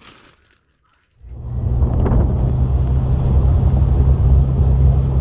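Steady low rumble of a car on the move, road and engine noise heard from inside, coming in suddenly about a second in after a moment of near silence.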